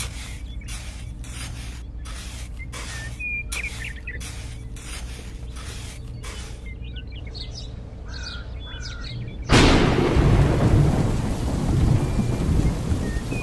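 Small metal trowel scraping through sand in quick, even strokes, with birds chirping. About two-thirds of the way through, a sudden loud thunderclap breaks in and heavy rain follows.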